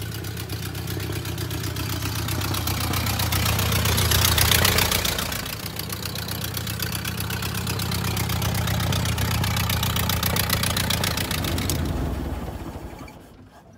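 1928 Ford Model A's four-cylinder flathead engine running as the car drives along, with a steady low note of rapid firing pulses. It grows loudest a few seconds in as the car comes close, then fades out near the end.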